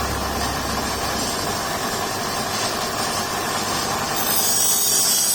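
A workshop machine running steadily. It has a low hum that fades out after the first second or two, and a hiss that grows near the end.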